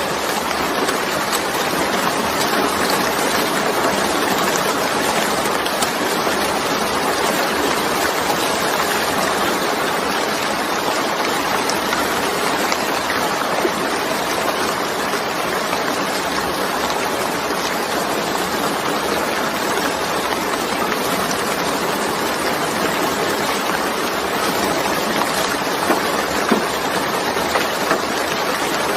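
Steady rain falling, a constant even hiss with a few sharper drop ticks near the end.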